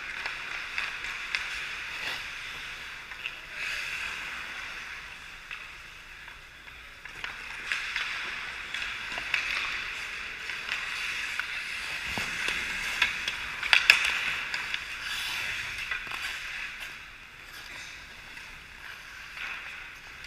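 Ice hockey play: skate blades scraping and carving on the ice, with sharp clicks of sticks and puck scattered throughout, the loudest cluster about fourteen seconds in.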